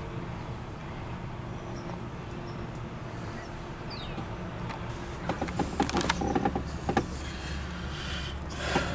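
An engine running steadily with a low hum, with a cluster of sharp clicks and knocks about five to seven seconds in and a short rustle near the end.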